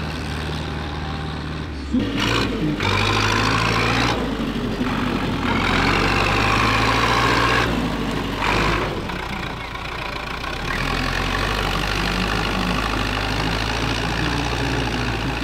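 Farm tractor's diesel engine running under load as the tractor drives through deep mud. The engine is louder and harsher in several stretches, as if worked harder.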